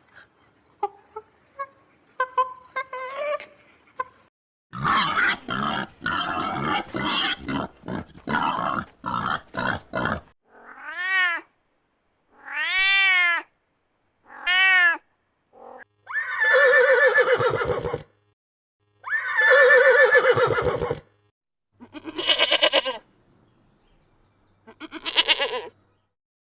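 A run of animal calls that includes a cat meowing several times, each meow rising and falling in pitch. Short chirps, a rougher stretch of calls, and several longer quavering calls come before and after the meows.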